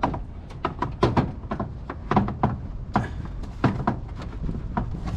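Irregular knocks and clicks of a plastic cold-air-intake air box being worked into place in the engine bay, a dozen or so sharp hits at uneven spacing.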